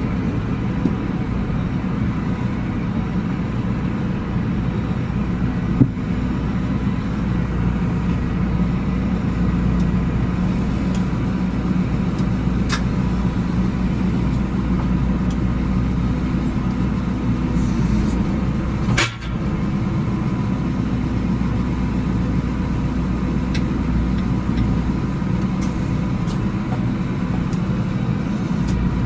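Massey Ferguson 5711 tractor engine running steadily as the tractor drives along, with a single sharp click about six seconds in and a brief break in the sound around nineteen seconds.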